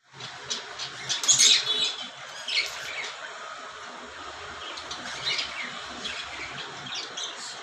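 Cockatiels chirping and squawking in short, scattered high calls, loudest about a second and a half in.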